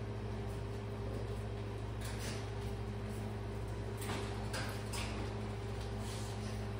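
A steady low hum, with a few short, faint sniffs and scuffs about two seconds in and again between four and five seconds, as a dog noses at a wire dog crate.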